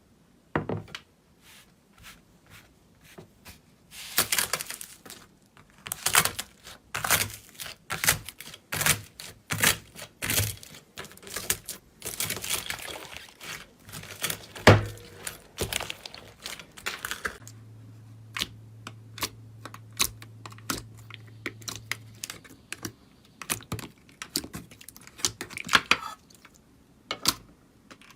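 Slime being squeezed and worked, giving quick runs of small clicks, pops and crackles that come thickest through the middle and thin out toward the end.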